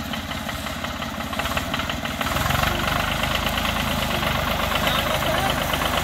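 Vehicle engine running with a steady, fast beat, growing louder about two seconds in.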